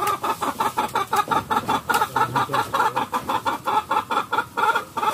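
Chicken clucking in a rapid, even run of short calls, about six a second.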